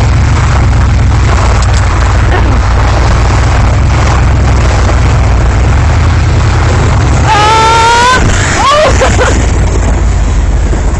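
Loud, steady wind buffeting and vehicle road noise on a cellphone microphone while driving, with a person's high shout about seven seconds in.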